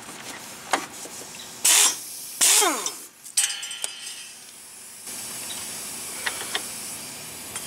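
Pneumatic impact wrench hammering in two short bursts with hissing air, winding down in pitch after the second, as it loosens a leaf spring shackle bolt. A few light metallic clicks and then a steady hiss follow.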